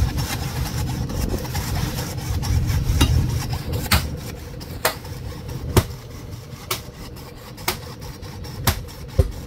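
Hacksaw sawing back and forth through the tough tail of a marlin, over the low running of the boat's engine. From about three seconds in, sharp clicks come roughly once a second.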